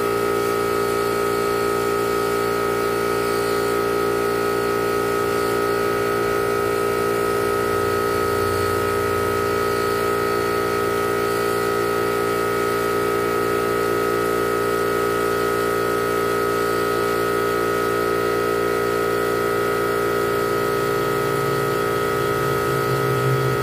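Old two-stroke chainsaw engine running steadily at a constant speed. The owner suspects an air leak, or that the saw is not yet fully pressurized with fuel.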